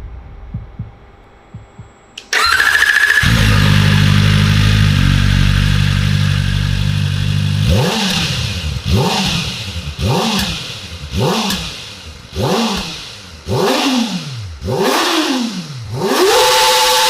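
Kawasaki Ninja ZX-4RR's 399 cc inline-four engine being started: a short starter whine as it catches about two seconds in, then a steady idle. Then eight quick throttle blips follow, each revving higher than the last, with the final one held briefly at high revs.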